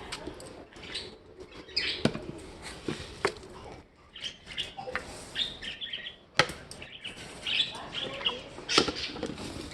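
Pet birds chirping in short calls, with several sharp knocks or clicks in between, one about six and a half seconds in being the loudest.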